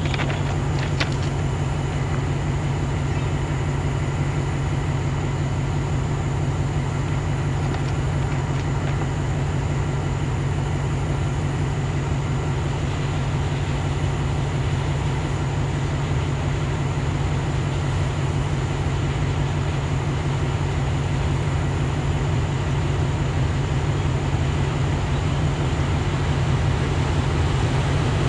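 Low steady rumble of an approaching YDM4 diesel-electric locomotive hauling a passenger train, growing slightly louder and brighter over the last half as it draws nearer.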